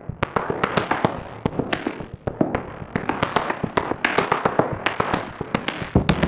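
A rapid, irregular series of sharp cracks and pops, several a second, with no steady rhythm.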